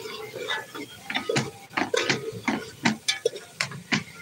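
A spoon scraping and knocking against the sides and bottom of a large metal pot while stirring a thick masala, in irregular clicks several a second.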